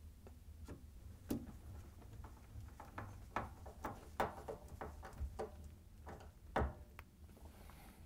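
Phillips screwdriver turning a wood screw up through the dishwasher's mounting bracket into the underside of a wooden countertop: irregular light clicks and ticks, roughly one or two a second, as the screw is driven in by hand.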